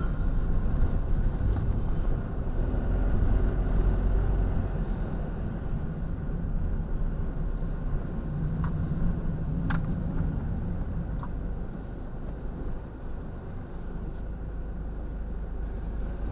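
Service truck's engine and road noise heard inside the cab as it drives slowly, a steady low rumble that eases off about twelve seconds in.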